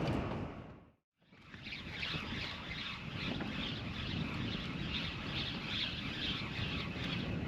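Outdoor wind noise on the microphone, which fades out to silence about a second in and fades back in. After the fade a repeating high chirping, about two a second, runs over the steady noise.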